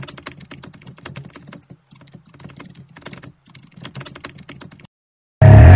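Keyboard typing sound effect: rapid, irregular key clicks that stop about five seconds in. After a half-second gap, loud music with a heavy bass cuts in near the end.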